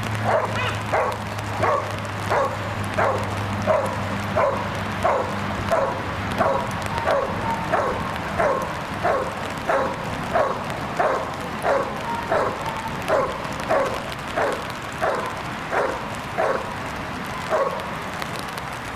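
Young dog barking steadily and repeatedly at a helper during a guard-and-bark exercise, about one and a half barks a second, each bark falling in pitch; the barking stops near the end. A low steady hum runs under the first few seconds.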